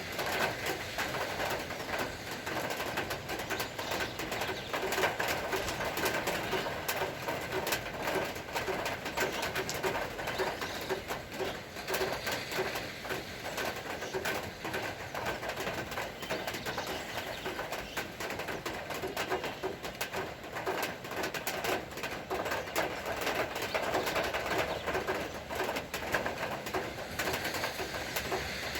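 Doves cooing repeatedly, over a steady hiss scattered with many small ticks.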